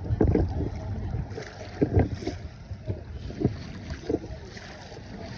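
Wind rumbling on the microphone, with a few irregular knocks and bumps, the loudest about two seconds in.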